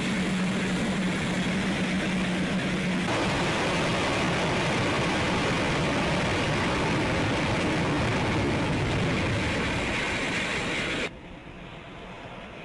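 Jet noise from the Black Eagles' T-50B jets during an aerobatic display: a loud, steady rush of engine noise with a low hum in the first few seconds. About eleven seconds in it cuts off suddenly to a much quieter background.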